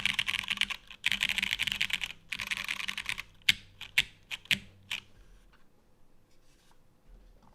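Custom mechanical keyboard with lubed Cherry MX Brown switches on a UHMWPE plate in a DN Works SBL case, typed on fast in three quick bursts. About three and a half seconds in come four separate single keystrokes about half a second apart, then the typing stops.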